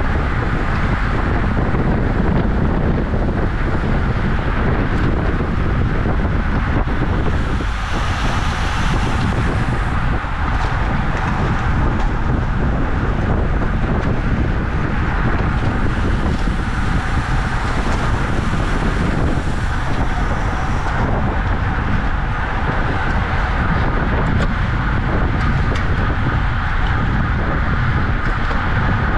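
Steady wind rushing over the microphone of a camera on a bicycle ridden at race speed, deep and buffeting, with a brighter hiss that swells twice.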